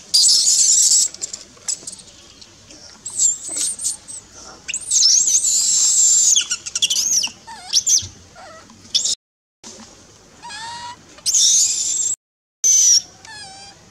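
Baby macaque screaming: a series of loud, high-pitched, wavering squeals, broken twice by a sudden total dropout of sound.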